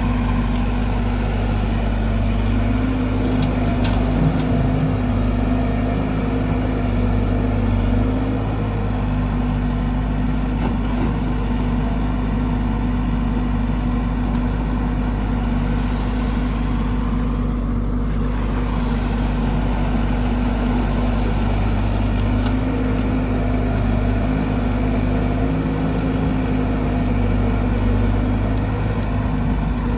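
JCB 140 excavator's diesel engine running steadily, with small swells in level.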